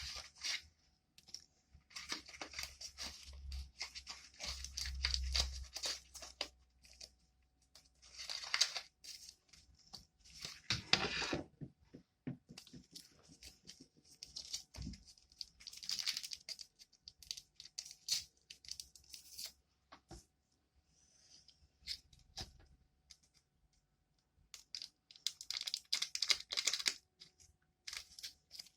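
Intermittent scratchy rustling and small clicks, coming in bursts with short quiet gaps: close-up hand handling of small denture-repair materials and tools.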